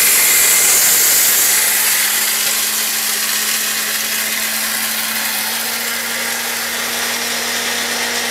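Orpat 1200-watt mixer grinder running steadily, grinding dry rice into flour in its small steel jar. It is running again after its overload cut-out was reset. A loud, even motor whine mixed with grinding noise, slightly louder in the first couple of seconds.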